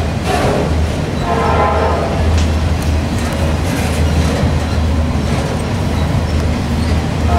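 Autorack freight cars rolling past close by: a steady, loud low rumble of steel wheels on rail, with a few scattered clicks.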